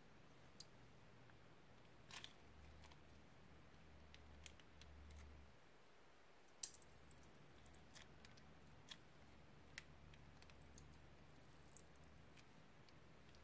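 Faint, scattered sticky clicks and crackles of slime being squeezed from a plastic piping bag and pressed into slime and foam beads in a bowl. The sharpest crackle comes about six and a half seconds in, with denser crackling after it, over a faint low hum.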